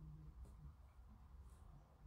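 Near silence: room tone with a steady low hum and two faint ticks, about half a second in and again a second later.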